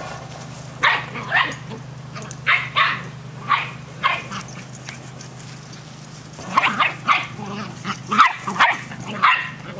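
Shetland sheepdog puppy barking in short, sharp yaps while chasing and nipping at a large ball: excited play barking. There are a few barks in the first four seconds, then a quick run of barks over the last three.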